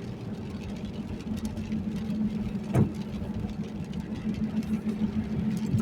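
Car driving on a wet road, heard from inside the cabin: a steady engine and road hum, with a brief knock about halfway through and another near the end.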